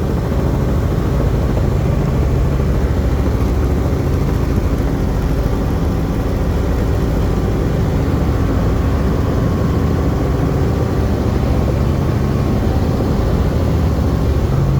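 Helicopter engine and rotor running with a loud, steady drone.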